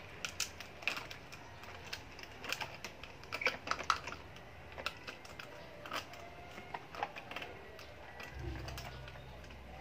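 Plastic toy crane truck being handled: irregular light clicks and clatter of its plastic boom and body, busiest about three to four seconds in.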